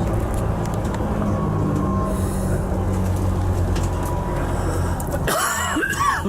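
Tour bus driving along a road: a steady low engine hum with road rumble. Near the end it briefly gives way to a short, wavering high-pitched sound.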